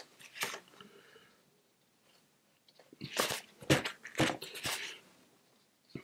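Paper towel crinkling and crunching in the hand as a watercolour brush is blotted on it, a handful of quick crackly rustles about three to five seconds in.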